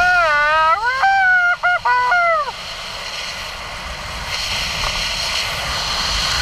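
A skydiver under canopy lets out a long whooping yell that wavers and rises in pitch, with a couple of quick breaks, and stops about two and a half seconds in. Steady wind rushes over the microphone.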